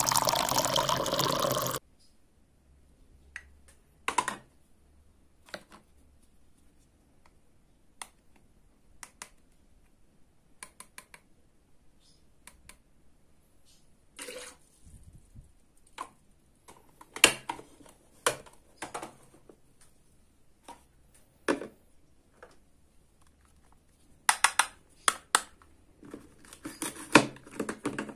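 Liquid poured from a toy blender jug into a small plastic toy teacup for about the first two seconds. Then scattered clicks and taps of plastic toy kitchen pieces being handled, with a busier run of taps and scrapes near the end as a toy knife works on a plastic toy fruit.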